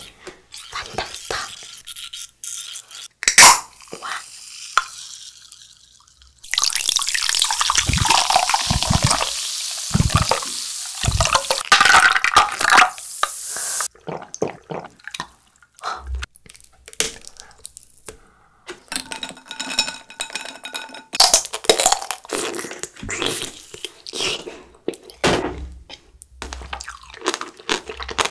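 Close-miked eating sounds: taps and clicks, then several seconds of drinking from a glass mug of orange drink that cuts off suddenly, then crisp crunching and chewing of hard candy-coated fruit (tanghulu).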